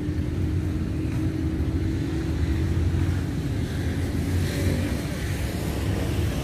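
Steady low rumble of city road traffic, with a brief swell of higher hiss, like a car passing, about four and a half seconds in.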